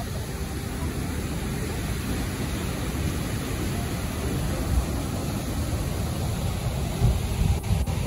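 Steady rushing roar of a large waterfall in heavy flow, with a few louder low rumbling swells near the end.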